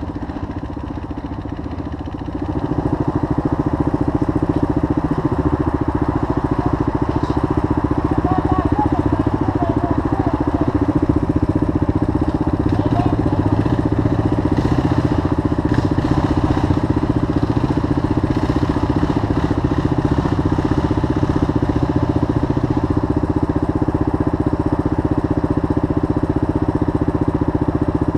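Suzuki DR dual-sport motorcycle's single-cylinder four-stroke engine running steadily, getting louder about two and a half seconds in and then holding an even note.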